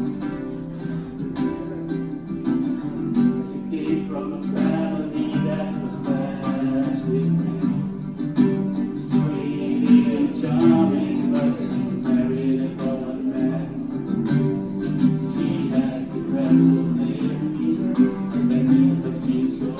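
Acoustic guitar strummed in a steady rhythm, with a man singing a simple melody over it at times.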